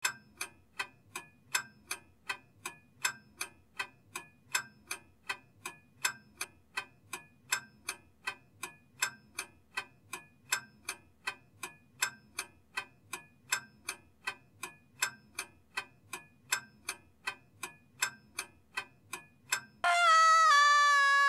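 A clock ticking evenly, about two and a half ticks a second. Near the end the ticking stops and a woman lets out a loud, long scream that holds one pitch, then drops.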